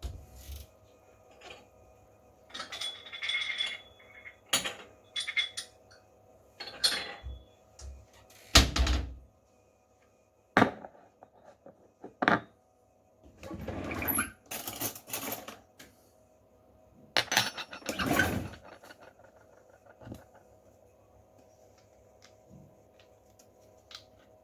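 Kitchen clatter: dishes, utensils and containers knocked and set down in irregular short bursts, over a faint steady hum.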